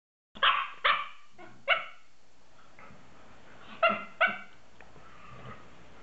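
A small dog barking in short, sharp barks: three in quick succession, then a pair about four seconds in. The barks are one dog goading another to play.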